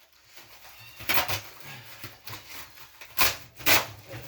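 Several short, sharp clanks and scrapes of a pellet grill's steel interior parts being handled and fitted: one about a second in and two close together near the end.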